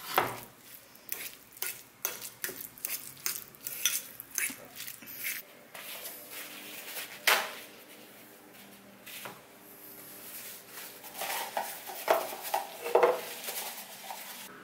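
A fork stirring and scraping an egg and mayonnaise mix in a ceramic bowl, with many quick clinks against the bowl for the first five seconds or so. Later comes a single sharp clink, then a run of clattering knocks near the end as a clear plastic container and the bowl are handled.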